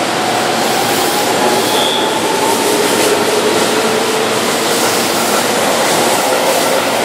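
Keihan 13000 series electric train moving along the platform, its wheels running on the rails with a steady rumble. Its traction motors give a whine that rises slowly in pitch as the train picks up speed.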